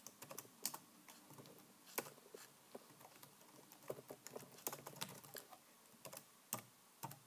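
Typing on a computer keyboard: faint, irregular key clicks with a few louder taps, as a command is entered.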